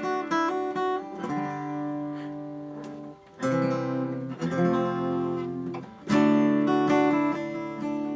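1980 Hofner six-string acoustic guitar being played: a few quickly picked notes, then strummed chords left to ring, with the loudest strum about six seconds in.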